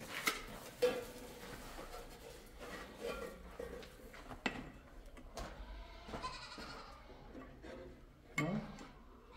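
Goats bleating now and then, with a couple of sharp clicks as ceramic tiles are handled.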